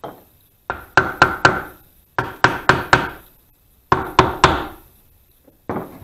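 Hammer knocking on the rusty metal housing of a sump pump whose motor won't start, in three quick runs of three or four blows, each blow ringing briefly. The motor is seized.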